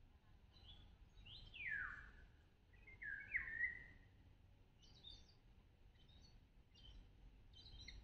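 Wild songbirds singing in a pine wood: two downward-sliding whistled notes, about two and three and a half seconds in, then short high chirps about once a second.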